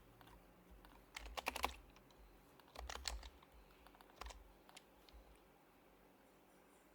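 Typing on an HHKB Professional Hybrid Type-S keyboard with its silenced Topre switches: three short, soft bursts of keystrokes, about a second in, around three seconds and a little past four seconds, with pauses between.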